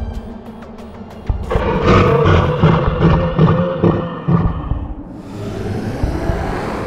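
A deep cartoon monster growl, about three seconds long, starting a second and a half in, over eerie background music.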